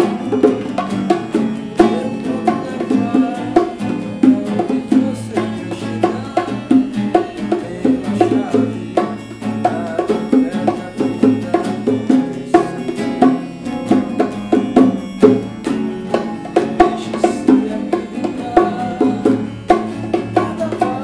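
Small band playing an instrumental passage: nylon-string acoustic guitar picked in a steady rhythm, a pair of bongos struck by hand, and a keyboard.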